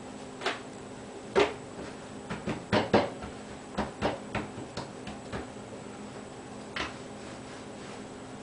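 Irregular knocks and clatter of things being handled on a kitchen counter. The strongest come about a second and a half in and around three seconds, with lighter ones scattered after.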